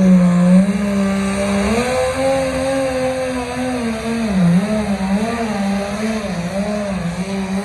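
A pulling tractor's engine running hard as it drags a weight-transfer sled down the track. Its pitch steps up about two seconds in, dips briefly near the middle, then wavers up and down as the throttle is worked.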